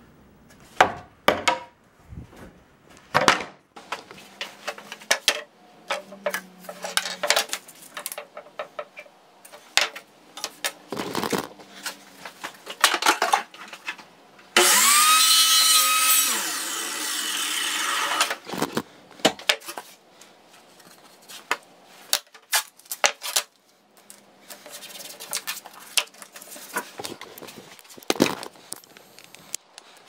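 Wooden boards knocking and clattering against each other as they are pulled from a scrap pile and handled, in a series of sharp knocks. About halfway through, a power tool's motor spins up with a rising whine and runs loudly for about four seconds.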